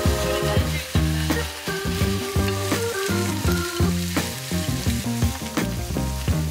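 Marinated beef short ribs sizzling in a stainless steel frying pan as they are turned with tongs, with sliced onions tipped in partway through. Background music plays over it.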